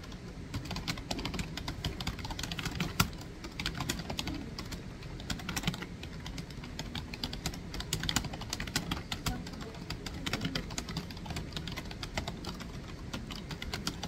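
Fast, irregular typing on a computer keyboard: a dense run of key clicks, starting about half a second in.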